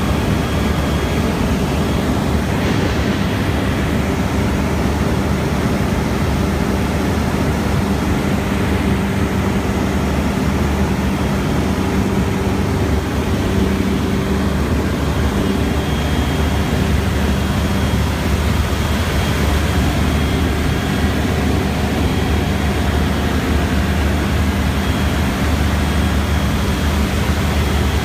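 Steady drone of a single-engine light aircraft's engine and propeller in level cruise, heard from inside the cockpit, with a constant low hum.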